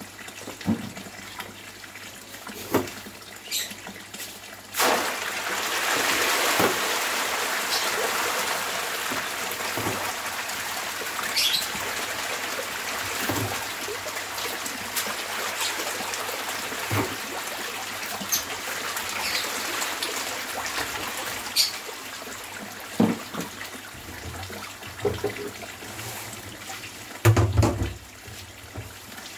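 Water pouring from an inflow pipe into a tarpaulin catfish tank. About five seconds in, a dense mass of catfish starts churning and splashing at the surface, loud at first and slowly easing off, with a few scattered knocks.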